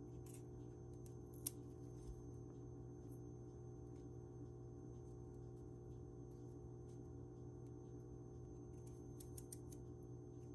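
Small kitchen knife cutting into a raw radish while carving it into a radish rose: faint crisp clicks and snips, one sharper click about a second and a half in and a cluster of little ticks near the end, over a steady low hum.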